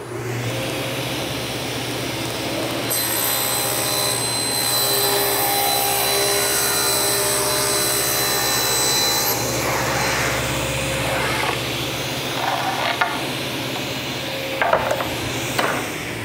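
Table saw starting and running, its blade ripping through a sheet of MDF from about three seconds in until about nine seconds, a higher, harsher whine over the motor's steady hum. After the cut the saw runs free, with a few short knocks of the board being handled near the end.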